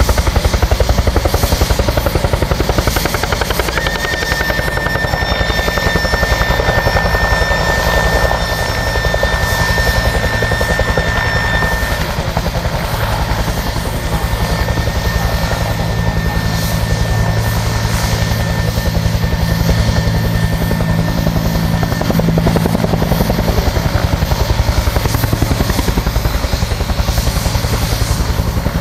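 Helicopter rotor chopping steadily close by, with its turbine running. A steady high-pitched whine runs alongside from about four seconds in to about twelve seconds in.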